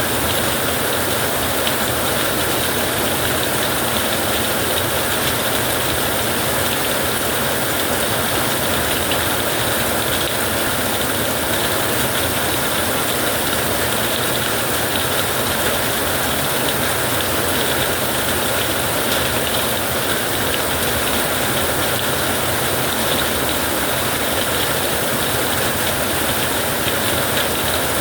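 Heavy rain falling steadily, a dense even hiss with no breaks or claps of thunder.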